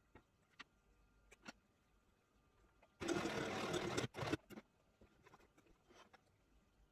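Semco Indigo 6 sewing machine stitching a short run of a little over a second about three seconds in, followed by two or three brief bursts of a few stitches. Light clicks and fabric handling before and after.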